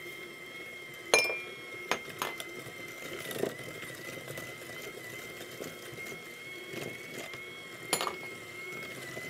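KitchenAid electric hand mixer running at a steady whine, its beaters creaming mashed banana with white and brown sugar in a glass bowl. A few sharp knocks break in, the loudest about a second in and another near the end.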